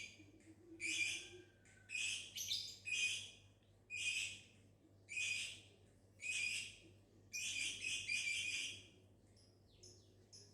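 Lovebird giving shrill chattering chirps in short bursts about a second apart, with a longer burst near the end.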